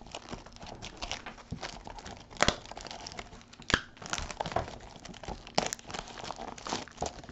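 Plastic shrink wrap crinkling and tearing as it is peeled off a sealed trading-card box, with a few sharper snaps among the crackling.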